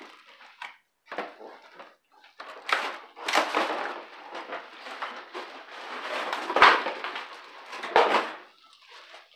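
Cardboard box and plastic wrapping rustling and crinkling as a plastic-wrapped iron and stove stand is pulled out of its box, with two knocks near the end.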